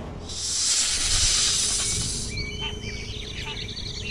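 A loud hissing whoosh lasting about two seconds, then birds chirping in short repeated calls over a low rumble.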